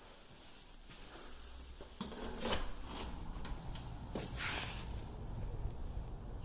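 A French door being opened onto a patio, with a sudden change about two seconds in as it opens and two brief rubbing swishes soon after. A steady low outdoor background comes in once the door is open.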